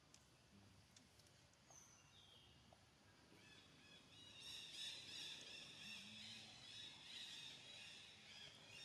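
Faint birds calling: two short single whistled notes near the start, then a busy twittering of high chirps that swells from about halfway through.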